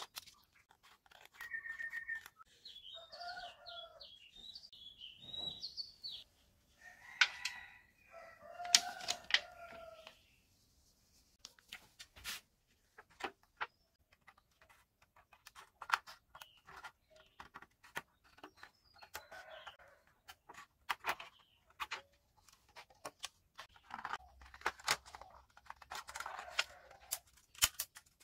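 Scissors snipping thin aluminium drink-can sheet, a string of sharp crunchy clicks. A rooster crows and chickens call in the background during the first ten seconds or so.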